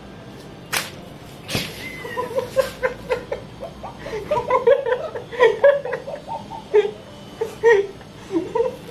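A person laughing hard in a long run of short, high-pitched bursts, after two sharp clicks near the start.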